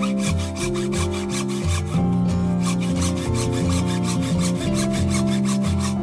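Hacksaw cutting through a green bamboo stalk, rasping with repeated back-and-forth strokes, over background music.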